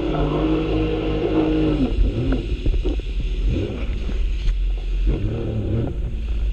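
Sea-Doo jet ski engine running at steady high revs, then dropping in pitch as it comes off the throttle about two seconds in. It runs lower and unevenly after that, with a brief rise in revs around five seconds. Wind and spray rumble on the handlebar microphone throughout.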